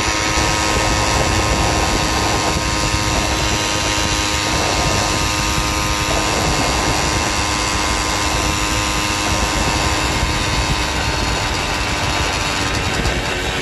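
Motorized bicycle's small engine running steadily at cruising speed, with wind rushing over the microphone.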